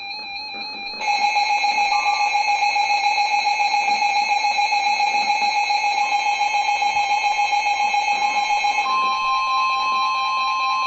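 Emergency Alert System alert tone: after about a second of soft guitar music, a loud electronic alarm tone starts, pulsing rapidly. About nine seconds in it changes to a steady two-tone alarm.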